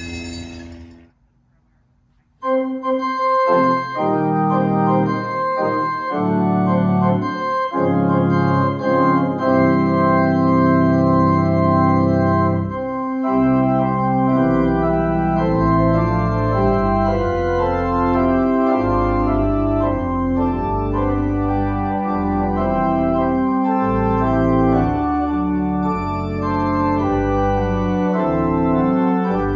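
Organ postlude starts about two seconds in: sustained chords over a moving bass line.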